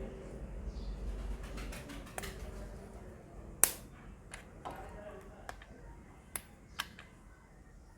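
About seven sharp plastic clicks and taps, the loudest about three and a half seconds in, from a hot glue gun and circuit board being handled on the bench.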